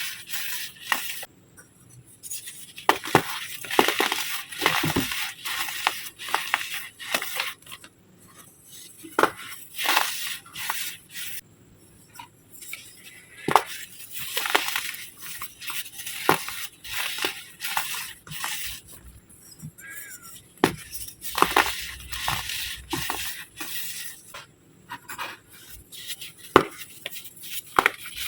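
Dried baking soda egg shapes crushed by hand, an irregular series of crunches and crumbling crackles with short pauses between.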